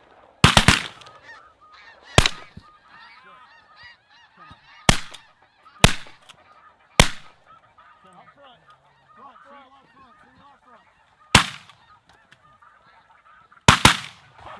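A volley of shotgun blasts, about nine in all, some fired in quick pairs and the rest spaced a second or several seconds apart, as several hunters shoot at snow geese over the decoys. Between the shots, a steady din of snow goose calls.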